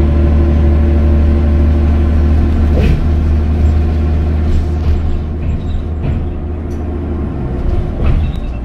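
A road vehicle driving at speed: a steady low engine and road rumble with an even hum, and one short knock about three seconds in.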